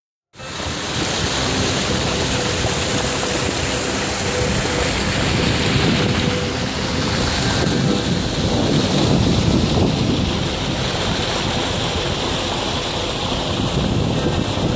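Water rushing steadily over the crest of a low concrete check dam and down its sloping spillway face, with wind buffeting the microphone.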